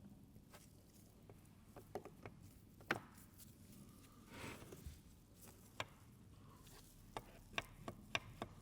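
Light, scattered clicks and taps of small metal parts and hand tools being handled while an engine oil pump is taken apart, with a burst of quicker taps near the end.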